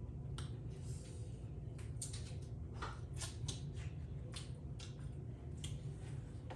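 Close-up eating sounds from a seafood boil: irregular wet clicks, smacks and crackles of chewing and handling saucy food, over a steady low hum.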